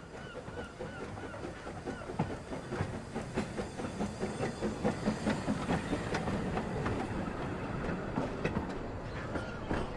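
Narrow-gauge steam train running, its wheels clicking over rail joints, with the clicks growing louder around the middle.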